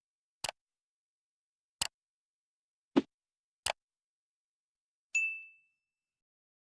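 Four short, sharp clicks at uneven intervals, then a single bright ding that rings and fades over about half a second.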